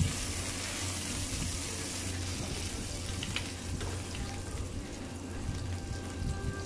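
Oil sizzling steadily in a frying pan around fried tanigue fish steaks as they are lifted out with metal tongs, with a couple of light clicks of the tongs against the pan.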